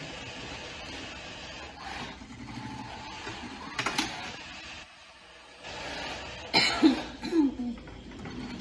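Hualong industrial sewing machine running steadily while stitching neoprene, stopping for a moment a little past halfway. A few sudden louder sounds break in around the middle and again about three quarters of the way through.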